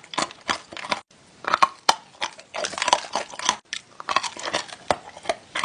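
Crunchy food being bitten and chewed close to the microphone, in irregular bursts of crunching.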